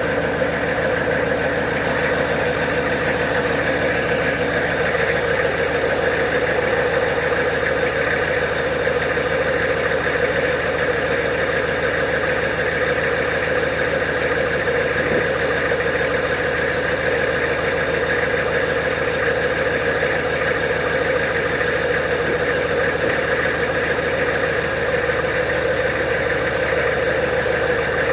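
6.5-litre Detroit Diesel turbo-diesel V8 of a GMT400 K3500 dually pickup running steadily through a straight-pipe exhaust.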